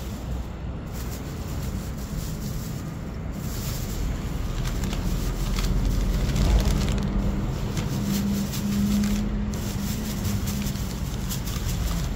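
Plastic packaging crinkling and rustling as a snack packet is torn open and handled inside a clear plastic bag. It grows busier about halfway through, over a steady low outdoor rumble.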